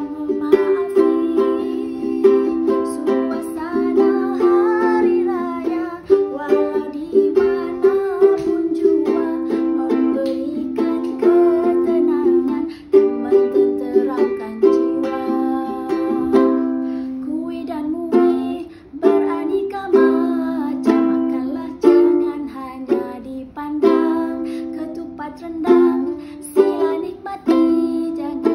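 Background music with plucked strings, a steady run of sharply struck notes.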